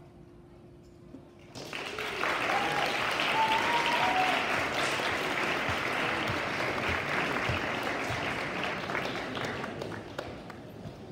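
Audience applause that breaks out about a second and a half in, with a few short cheers in the first seconds, then slowly dies down near the end.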